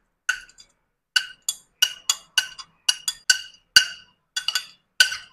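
Steel spoon tapping and scraping against a ceramic plate as chopped onion, tomato, coriander and green chillies are pushed off it into a bowl of beaten eggs. It makes a quick run of sharp, ringing clinks, about three a second.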